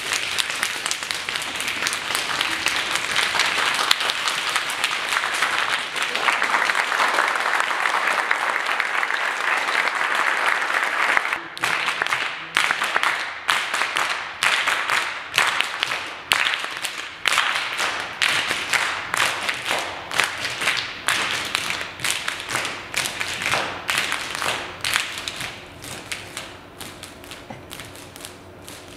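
A roomful of people clapping. For the first ten seconds or so it is dense, overlapping clapping; then it settles into a steady shared beat of about two claps a second, which grows fainter over the last few seconds.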